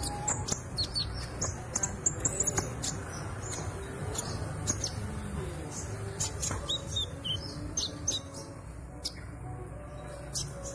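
A young kolibri ninja sunbird chirping in short, high-pitched notes and twitters while it learns its song, over a steady low hum.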